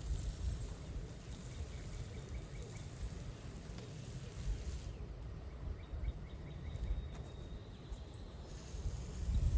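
Outdoor ambience: wind rumbling on the microphone, with faint, rapid high-pitched chirps. The background changes abruptly about five seconds in.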